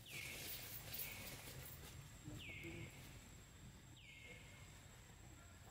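A wild animal calls three times, faint. Each call drops quickly in pitch and then holds on a steady high note, over faint outdoor background noise.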